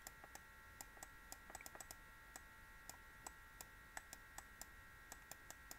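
Near silence, with faint, irregular clicks from an equation being handwritten on a computer, over a faint steady high whine.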